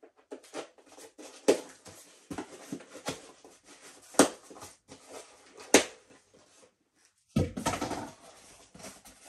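Small cardboard box being worked open by hand: scattered crackles and scrapes of cardboard and tape with three sharp snaps, then a denser rustle near the end as the flaps are opened.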